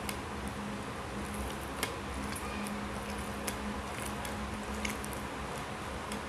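Fingers mashing and mixing boiled vegetables by hand on a plate: soft squishing with a few sharp clicks, over a steady low hum.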